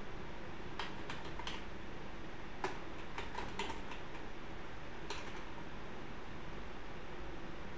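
Typing on a computer keyboard: three short runs of keystrokes, the last a single click, over a steady background hiss.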